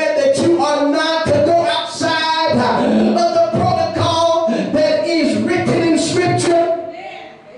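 A man's voice preaching in a sung, chanted cadence through a microphone, with long held notes, trailing off near the end.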